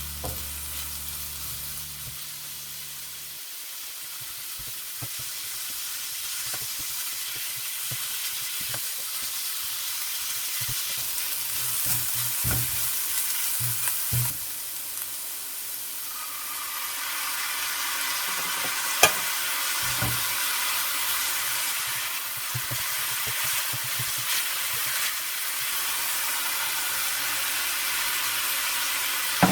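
Food sizzling in an oiled frying pan as it is stirred, with occasional sharp clicks and scrapes of a utensil against the pan. The sizzle grows louder about halfway through.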